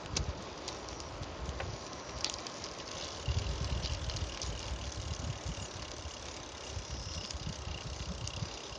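Wind buffeting the microphone over a steady hiss of riding a bicycle along a paved path, with a few light clicks and rattles. A faint steady high tone comes in about three seconds in.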